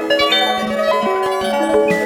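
Modular synth music: a Qu-Bit Surface physical-modelling voice plays a dense cascade of short, overlapping pitched notes with sharp starts, processed through Qu-Bit Prism and Data Bender modules.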